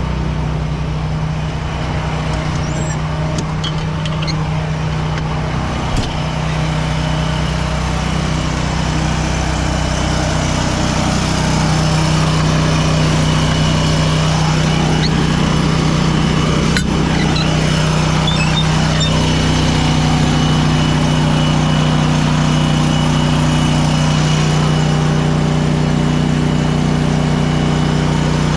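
Heavy farm machinery engine running steadily at a constant speed, with one sharp knock about six seconds in; the engine gets louder about eleven seconds in.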